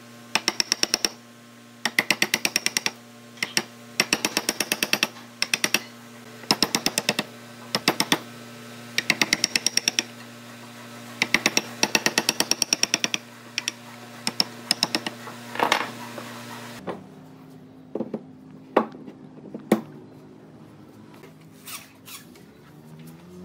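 A power tool hammering in short rapid bursts of about ten strikes a second, over a steady low hum. After about seventeen seconds the bursts stop, leaving a few scattered knocks.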